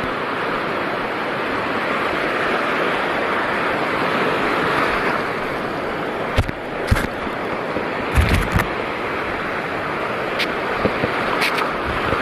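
Steady rushing of seawater at the shore, with a few sharp knocks and bumps about halfway through.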